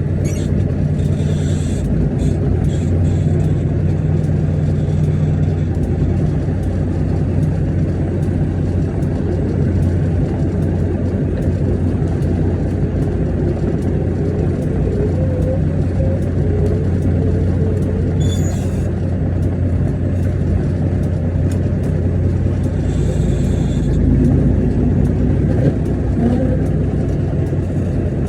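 International 9900 semi tractor's diesel engine running steadily as the truck drives and maneuvers, with a few short hisses.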